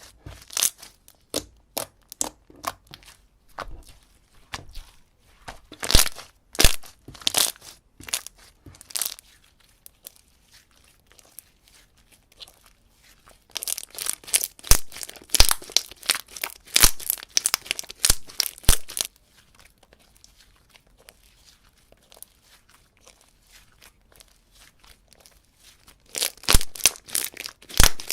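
Slime being worked by hand, giving clusters of quick pops and clicks with quieter pauses between; the densest runs come about halfway through and near the end.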